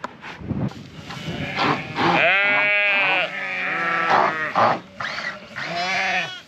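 Sheep bleating: three long, wavering bleats one after another, starting about two seconds in.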